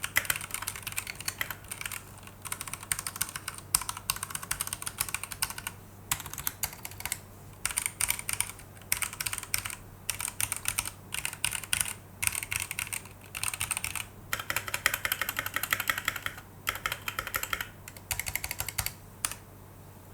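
Typing on a VOYAGER68 65% mechanical keyboard fitted with Gateron Red linear switches: fast runs of keystroke clacks in bursts, broken by short pauses. There is no stabilizer rattle or metal ping.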